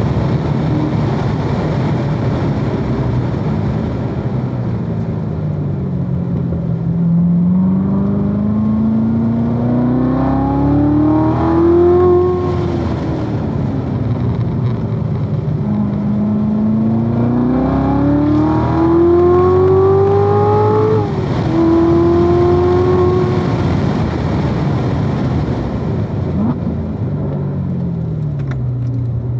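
2016 Corvette Z06's supercharged 6.2-litre V8 at full throttle on track, its note climbing twice through long pulls. The second pull has a quick upshift near its top. After each pull the note falls away as the car comes off the throttle and slows.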